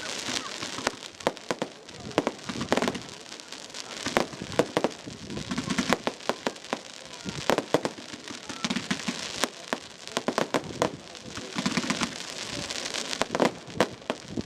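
Fireworks display going off: a continuous string of sharp bangs and pops with crackling in between.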